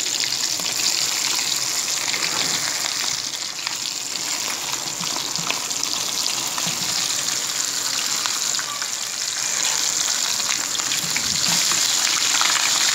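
Whole flour-dredged herring frying in hot oil in a pan: a steady sizzle with small crackles, a little louder near the end.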